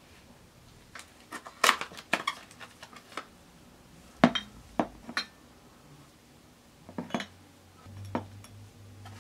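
Frosted glass halogen light bulbs and their cardboard boxes being handled and set down on a hard tabletop: scattered sharp clicks, knocks and glassy clinks, the loudest knock a little over four seconds in.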